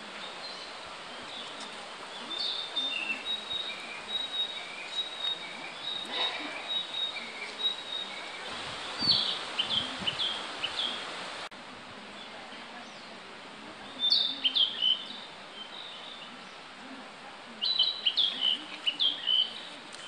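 Male Narcissus flycatcher singing in loud, separate phrases of short, sharp whistled notes that drop in pitch, about nine, fourteen and eighteen seconds in, with fainter high bird notes before them.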